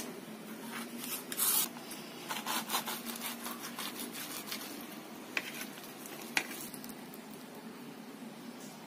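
Kitchen knife cutting through a stuffed chapati roll on a plate: a noisy scrape about a second and a half in, then a run of short scrapes as the blade saws through. Near the middle come two sharp clicks of the blade against the plate.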